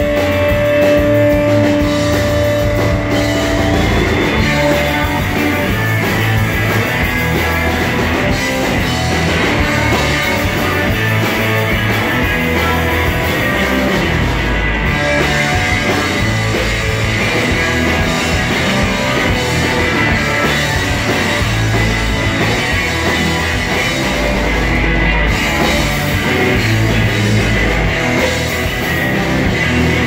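Live rock band playing loud: electric guitars, bass and a drum kit, with a long held note ringing over the band in the first few seconds.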